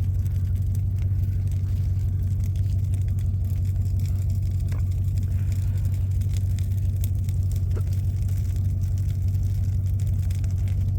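A vehicle engine running steadily with an even low hum, with no change in speed.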